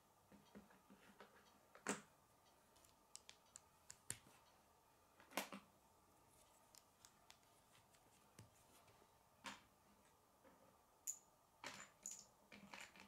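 K'nex plastic rods, connectors and gears clicking and snapping together as they are fitted by hand: scattered sharp clicks, the loudest about two and five and a half seconds in, with a quick cluster near the end.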